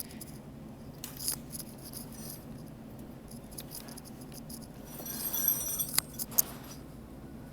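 Metal hand tools clinking and rattling as a wrench is fitted and worked against a stubborn fitting under a truck. There are scattered clicks and a burst of metallic rattling about five seconds in, over a steady low hum.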